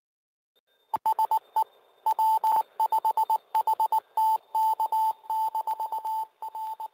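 Morse code beeps: a single steady mid-pitched tone keyed in quick dots and longer dashes, starting about a second in. This is typical of a repeater's automatic station identification in Morse.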